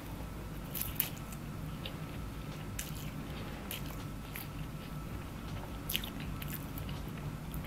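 Close-up mouth sounds of a person eating fried rice vermicelli: chewing with scattered short clicks, over a low steady hum.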